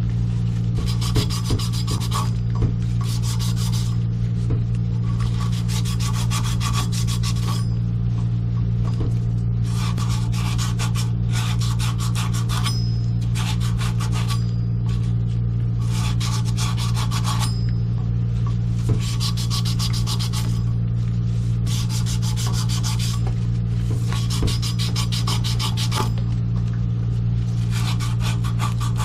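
Repeated rasping, rubbing strokes like sanding or filing, each a second or two long and coming about every two seconds, over a steady low hum.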